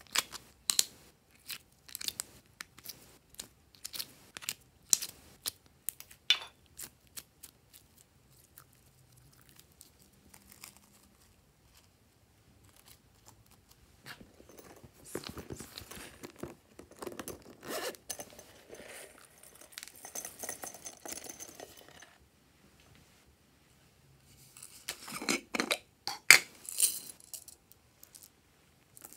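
Close-up handling of a plastic slime cup and glossy slime: a run of sharp plastic clicks and taps over the first six seconds, then a stretch of sticky crackling as slime is worked out of the cup in the middle, and a loud cluster of clicks near the end as plastic beads are handled.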